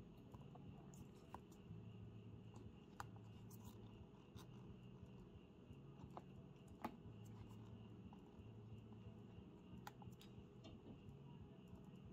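Near silence with faint, scattered clicks of the keypad buttons and rotary knob being worked on an Olympus Epoch 650 ultrasonic flaw detector.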